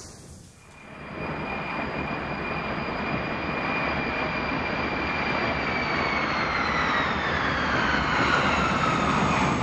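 Jet aircraft passing by: a rushing engine noise that builds over the first couple of seconds, with a high whine that slides steadily down in pitch from about halfway through as the aircraft goes past.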